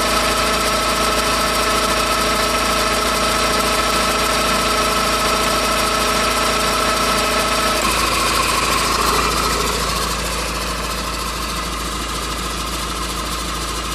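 Honda Civic running with a steady whirring whine, several even tones over the engine hum. The whine cuts out about eight seconds in, the sound shifts briefly, then it settles quieter.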